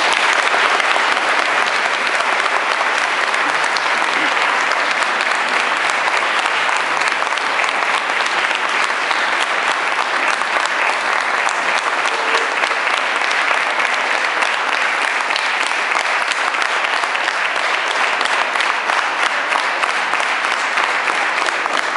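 Audience applauding: a long, steady round of clapping from a crowd.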